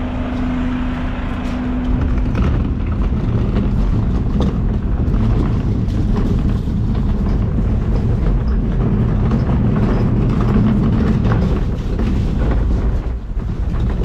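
Front-load garbage truck's engine running: a steady hum for the first couple of seconds, then a louder, dense low rumble.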